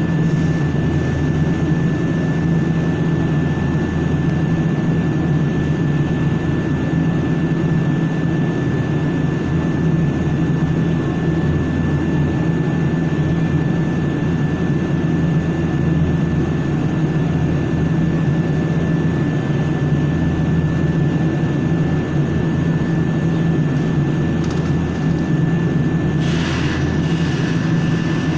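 Steady low hum inside a stationary Nankai Koya Line electric train car, with a thin steady high tone over it. A brief hiss with a high falling whistle comes near the end.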